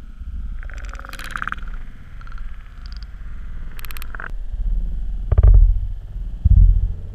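Shallow river water heard through a waterproof action camera as it is dipped from the surface to underwater. There is splashing about a second in and again near four seconds as it goes under, then low rumbling surges of water against the housing, about one a second.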